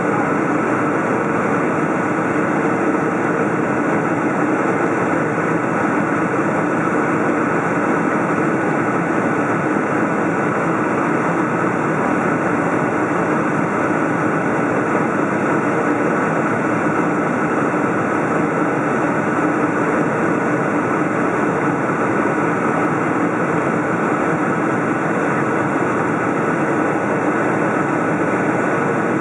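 Steady cabin noise inside a Boeing 737 on descent: the hum of its CFM56 turbofan engines mixed with rushing airflow past the fuselage, with a few faint steady tones over it and no change in level.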